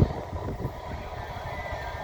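Freight train rolling slowly past: a low rumble with irregular clanking of wheels and wagons on the rails, and a faint high squeal near the end.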